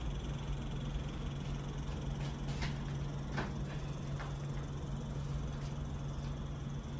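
Hotel room tone: a steady low hum, with a few faint light clicks.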